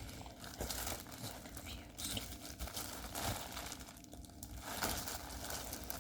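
Plastic packaging of diamond painting kits being handled, crinkling and rustling in irregular bursts.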